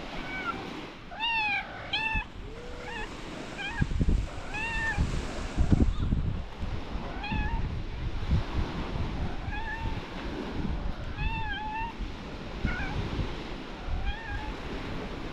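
A cat meowing again and again, short arching meows about one a second, over a low background rumble.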